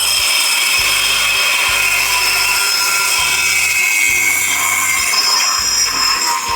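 Angle grinder running steadily against metal: a loud hiss with a high, wavering whine. Background music with a steady beat plays underneath.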